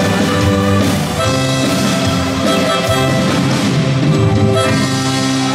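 Live band playing dance music, with guitar, for dancers.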